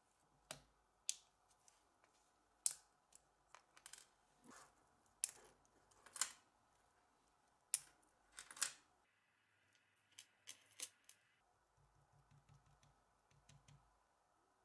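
Sparse, sharp little metal clicks and taps from a steel watch case, bracelet and small pin tools handled with gloved fingers, some ringing briefly, with quiet gaps between them.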